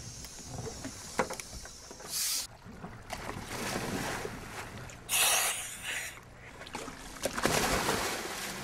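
Scuba divers in drysuits going off the side of a boat and hitting the water with splashes: a brief one about two seconds in, a loud one about five seconds in, and another near the end. Under them is a steady hiss of wind and water.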